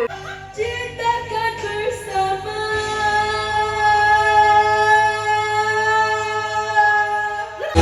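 A solo singing voice, almost unaccompanied: a few short sung notes, then one long high note held steady from about three seconds in, cut off just before the end.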